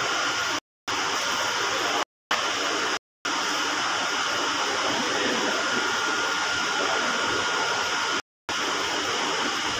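Steady rushing noise with no rhythm, broken four times by brief total dropouts to silence.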